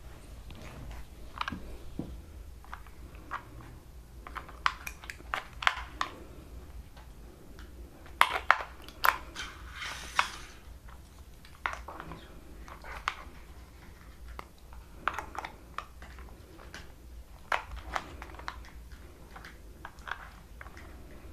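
Plastic clicks, taps and rattles from handling a toy RC car's pistol-grip remote control while fitting battery cells into its battery compartment. The clicks come irregularly, with a short scraping rustle about ten seconds in.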